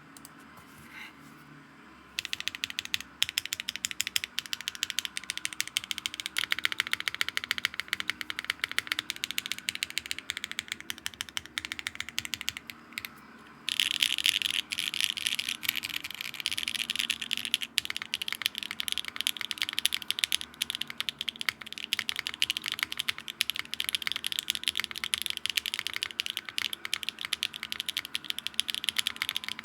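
Fast typing on a Neo65 mechanical keyboard with Akko x HMX Mirror switches, a carbon fiber plate, no foam and GMK keycaps, giving a high clack. The typing starts about two seconds in and stops briefly about halfway through before going on.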